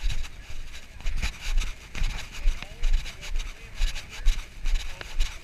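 Footsteps on a gravel path, about two a second, each with a low thump and a gritty rub from the carried camera being jostled.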